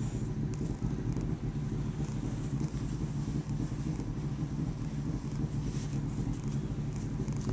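Domestic tabby cat purring steadily at close range, a low continuous purr, with faint rustles of fur and fleece blanket under a stroking hand.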